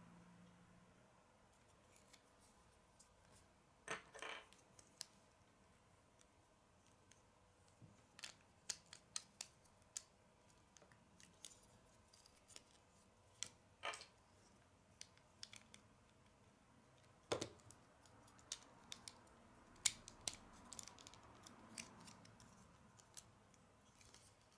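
Lego bricks clicking as they are handled and pressed together by hand: scattered sharp plastic clicks, some in quick runs of three or four, with quiet gaps between.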